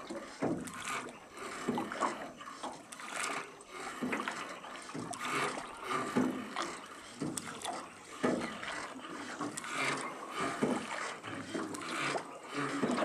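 Wooden rowboat being rowed: oars dipping and splashing in the river at an irregular pace, with water lapping and small knocks from the boat.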